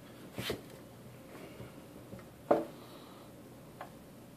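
Handling knocks of an access point's casing being gripped and tipped up on a wooden table: a couple of light clicks about half a second in, one sharp knock about two and a half seconds in, and a faint click near the end.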